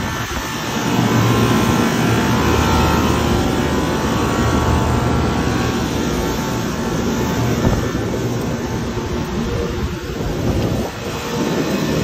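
Trane IntelliPak rooftop unit running with its compressors and condenser fans forced on in service test mode: a steady drone of fan air with a low hum underneath.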